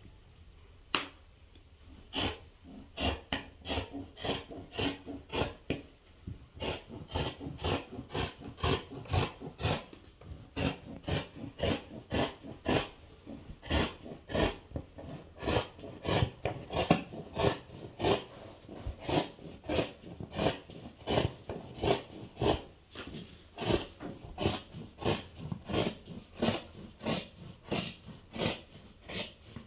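Large fabric shears cutting through folded cloth on a table: a steady run of snips, about two a second, beginning about two seconds in.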